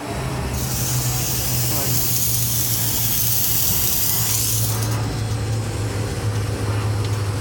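Fog machine blasting smoke with a loud, bright hiss that starts about half a second in and cuts off after about four seconds, over the steady low hum of the air-conditioning plant.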